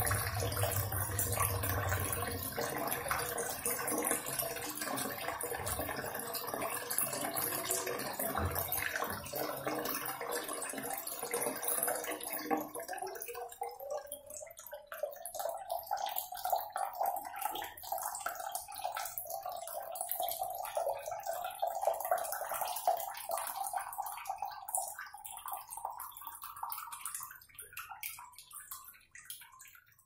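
Tap water running and splashing. About halfway in, the sound narrows to a steadier stream with a tone that slowly rises in pitch, then fades out near the end.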